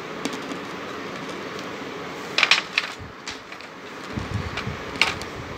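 Sharp clicks and crackles of hard baked clay and stone pieces: a cluster of several about halfway through, a few single ones after, the loudest a little before the end, over a steady background hum.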